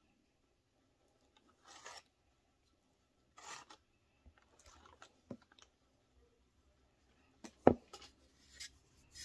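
Spatula scraping sweet potato pie filling out of a metal mixing bowl: a few short, soft scrapes with small ticks between them, and one sharp knock about three-quarters of the way through, the loudest sound.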